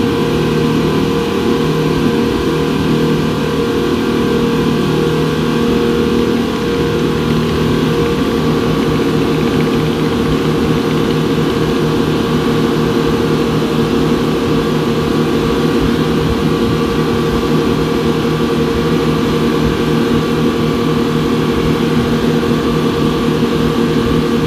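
Twin 250 hp Yamaha outboard engines of a wooden speedboat running steadily; about eight seconds in the low part of their note turns more throbbing.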